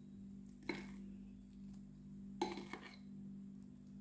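A spatula clinking twice against the dishes while whipped cream is scooped and dolloped onto a cake in a glass baking dish, about a second in and again halfway through. A steady low hum runs underneath.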